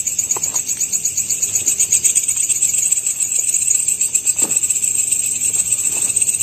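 Night insects, crickets or similar, chirring in a steady, rapidly pulsing high-pitched chorus, with a couple of faint short ticks, one near the start and one past the middle.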